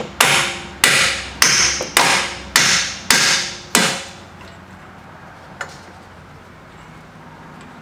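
Ball-peen hammer striking the end of a splined strut-to-knuckle bolt on a 2016 Camaro's front strut to drive the tight bolt out: seven sharp metallic blows a little over half a second apart, each ringing briefly. The blows stop about four seconds in.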